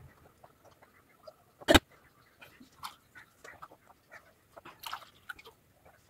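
A person gulping and swallowing water quickly from a glass, in a run of short irregular mouth and throat sounds with one louder sharp sound a little under two seconds in. It is the water-drinking stage of kunjal kriya, the yogic cleansing, where a large amount of water is drunk in one go.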